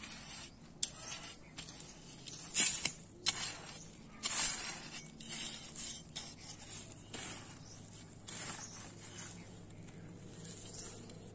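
Irregular rustling and scraping noises with a sharp click about a second in and a few louder bursts a few seconds in.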